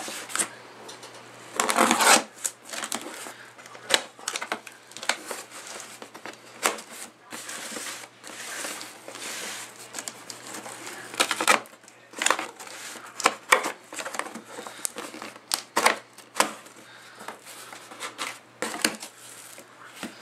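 A taped cardboard shipping box being opened by hand: packing tape slit with a screwdriver and torn, and the flaps pulled open, in a string of irregular scrapes, rips and cardboard rustles. The loudest rip comes about two seconds in.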